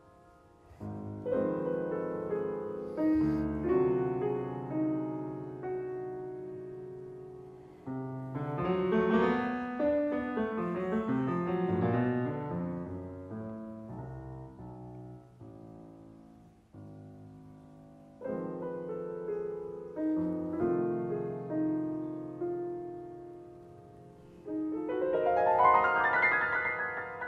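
Solo grand piano playing classical music in separate phrases: chords struck and left to ring and fade, a busier passage of many notes about a third of the way in, and a rising run of notes near the end.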